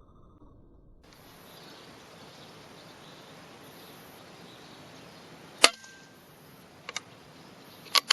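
A single sharp rifle shot about two-thirds of the way through, over a steady outdoor hiss. A fainter click follows about a second later, then a quick run of three or four clicks near the end.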